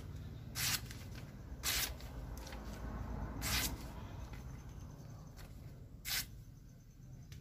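Paper being sliced by a sharp sword blade forged from a motorcycle disc brake rotor, as a sharpness test: four short, swishing cuts, spaced unevenly over several seconds.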